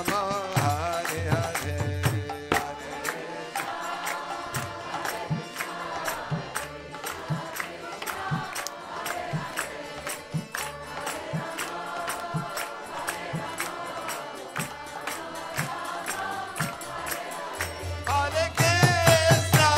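Kirtan music: voices chanting a devotional mantra over karatals (small hand cymbals) clashing in a fast, steady beat, with drum strokes underneath. It swells louder near the end, with a deep, sustained low tone joining.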